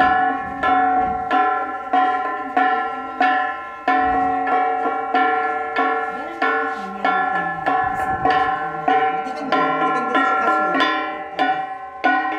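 Two handheld flat bronze gongs (Ifugao gangsa) struck with wooden sticks in a steady, even beat. Each stroke rings on into the next, so the metallic tones overlap throughout.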